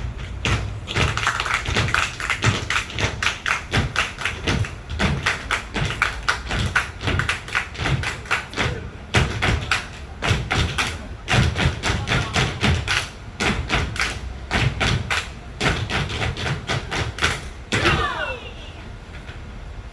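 Tap shoes' metal taps striking a stage floor in quick rhythmic patterns, stopping abruptly near the end.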